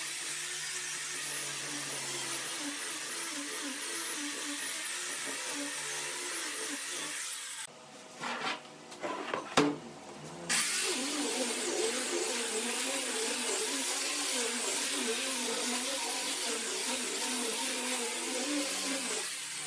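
Handheld electric power tool running steadily, its pitch wavering under load. It stops about 8 s in, with a few knocks, and starts again about 2.5 s later.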